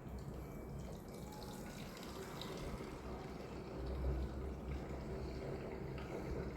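Water trickling and lapping, with a low rumble underneath.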